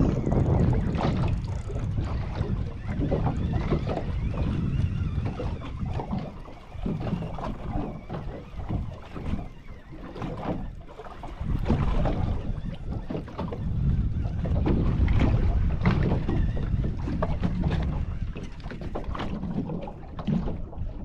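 Wind buffeting the microphone aboard a small fishing boat at sea, a gusting low rumble that swells and fades, mixed with the knock and splash of water against the hull.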